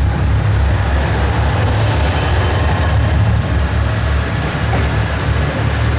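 Kiha 189 series diesel multiple unit pulling out of a station under power: a steady, loud low rumble of its diesel engines, with running noise from the wheels as the cars roll past and away.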